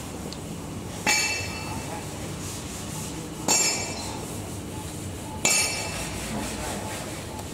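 Three ringing metallic strikes, about two seconds apart, each fading over roughly half a second, over a steady low hiss.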